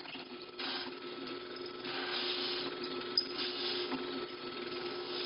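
Drill press running with a steady hum, a pen-barrel trimmer in its chuck. Over it come three short stretches of hiss, about half a second, two seconds and three and a half seconds in, and a sharp click just after three seconds.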